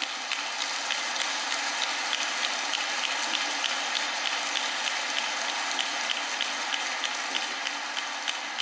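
Large audience applauding, a dense steady clatter of many hands clapping that thins out near the end.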